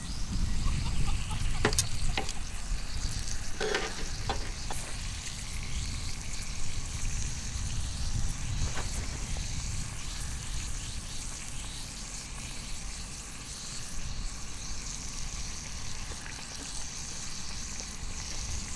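Thick-sliced beef tongue sizzling on a hot iron griddle, a steady hiss, with a few short clicks in the first few seconds and one more near the middle.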